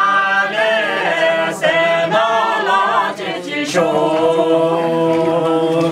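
Several voices singing together without instruments, holding long notes in a slow, chant-like melody over a steady low note. There is a short break a little past halfway, then one long held phrase.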